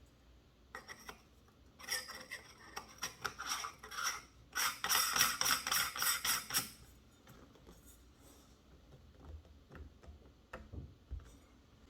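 Small metal parts clicking and rattling in quick runs, the densest stretch a few seconds in, followed by scattered light taps: hardware being handled while a scope and mount are fitted to a rifle.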